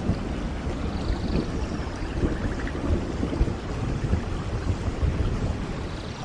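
Heavy rain falling steadily, with a deep rumble of thunder underneath.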